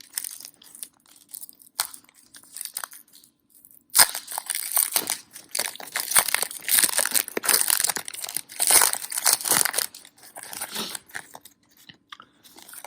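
Plastic foil wrapper of a basketball card pack being torn open and crinkled. There are light crackles at first, then a sudden sharp tear about four seconds in and dense crinkling for several seconds after, thinning out near the end.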